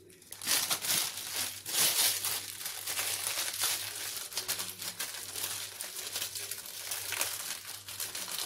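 Crinkling and rustling of packaging being handled, dense with small crackles, starting about half a second in and stopping near the end.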